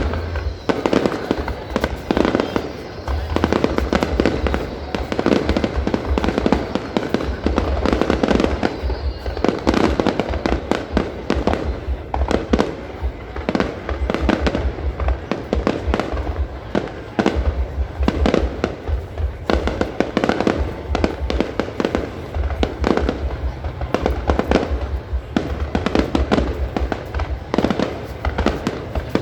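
Fireworks display going off: a continuous barrage of rapid, overlapping bangs and crackles with deep booms.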